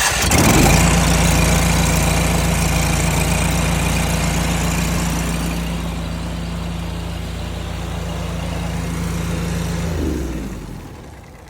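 Pressure washer's gas engine running steadily, with a loud hiss over it for the first five seconds or so, then winding down and stopping about ten seconds in.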